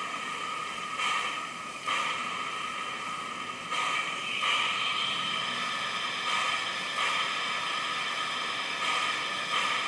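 Steam-locomotive sound from a model locomotive's DCC sound decoder, played through its small on-board speaker: the standing engine hissing steam, the hiss swelling and dropping back every second or so.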